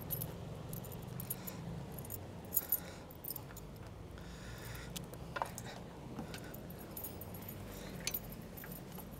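A few faint, scattered metallic clinks of a bicycle lock and keys being handled, over a steady low background rumble.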